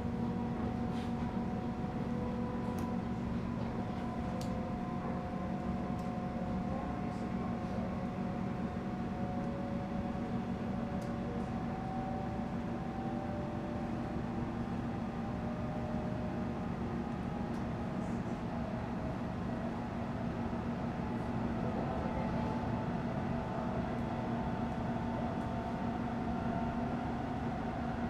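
Interior of a Melbourne Metro suburban electric train in motion: a steady rumble and low hum, with higher electric motor whines slowly drifting in pitch and a few faint clicks and rattles.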